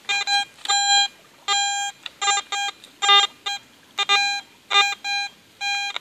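Garrett AT Gold metal detector giving its target tone: a dozen or so short, mid-pitched beeps, roughly two a second and uneven in length, as the search coil is swept back and forth over a buried target. A few beeps drop to a lower tone. The signal marks a target that the detector puts about 8 inches deep.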